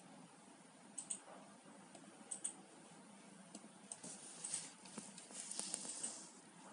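Faint computer mouse and keyboard clicks: two quick pairs of clicks early, then a denser run of clicking and key clatter in the second half.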